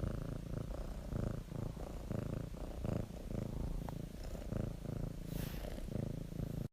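A cat purring steadily, swelling and fading in a regular rhythm with its breaths.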